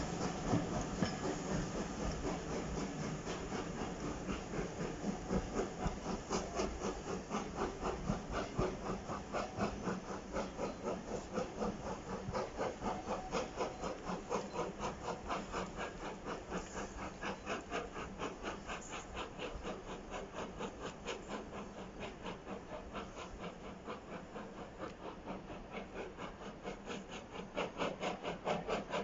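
Steam locomotive chuffing in a steady, even rhythm as the train pulls away, growing gradually fainter, with a brief swell near the end.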